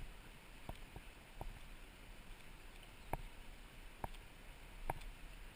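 Faint, steady rush of shallow river water, with about half a dozen short, sharp clicks at uneven intervals.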